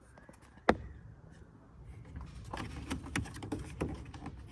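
A single sharp click less than a second in, then a run of small clicks and knocks from the back cover of a VW Touareg headlight module as its tab is pried up and the cover worked by hand; the cover has not yet come free.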